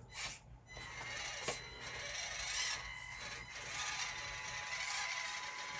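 1/24-scale RC crawler's small electric motor and gear drivetrain whining steadily as it climbs a steep incline, with a few clicks near the start.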